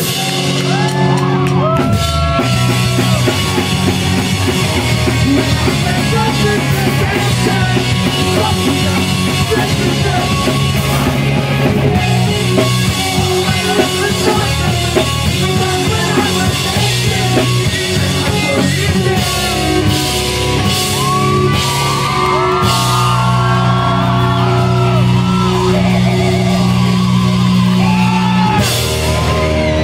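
Live pop-punk band playing loudly: amplified guitars, bass and a drum kit under a singer's vocals, with shouting voices among them.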